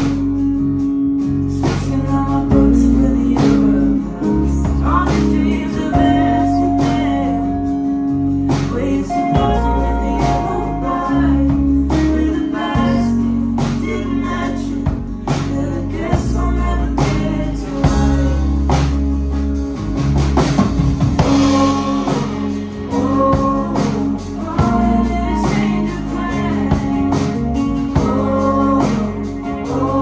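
Live indie folk-rock band playing a song: electric and acoustic guitars, bass and drum kit, with singing over the top.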